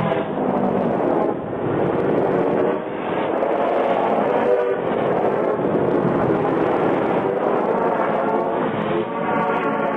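A continuous vehicle running noise, a dense rumble with shifting pitched tones through it, dull and muffled with no treble.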